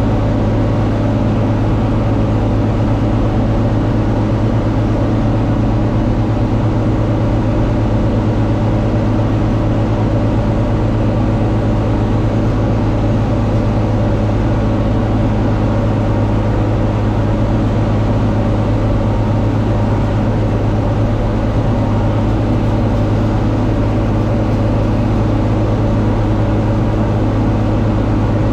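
John Deere 4250 tractor's diesel engine running steadily at working speed while pulling a Kuhn VB 3155 round baler through hay; a constant, even drone with a deep hum and no change in pitch.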